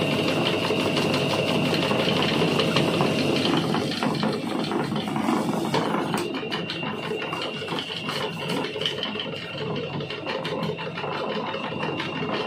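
Electric motor of a roll foil-cutting machine running steadily, spinning a roll of gold foil on its shaft while a blade slits it, with a thin high whine. Light ticking joins in the second half.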